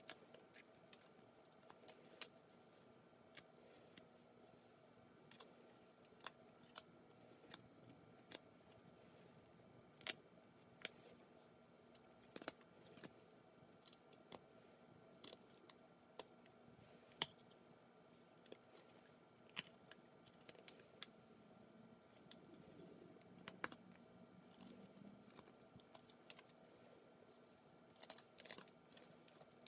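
Carving knife whittling wood by hand: short, sharp cutting clicks as each slice comes off, irregular, about one every second or two, over a faint steady hum.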